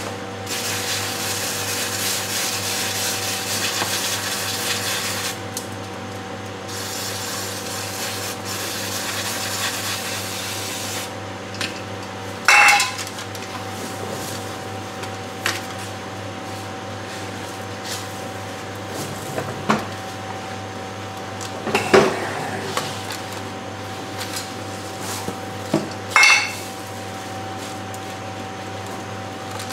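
Aerosol cleaner sprayed through its nozzle straw onto the oily underside of a Land Cruiser 40's transmission in two long hissing bursts, washing off leaked oil to find the leak. Then a few sharp metallic clinks, three of them louder, as the can and tools knock against the metal.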